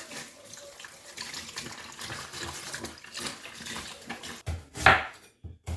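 Water running from a kitchen tap while catfish pieces are washed and scrubbed in vinegar with steel wool, with a few louder swishing bursts near the end.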